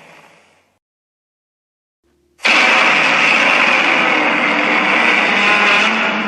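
An edited Shin Godzilla sound effect: one effect fades out during the first second, there is a short silence, then a loud, harsh, sustained monster sound starts abruptly about two and a half seconds in and holds steady.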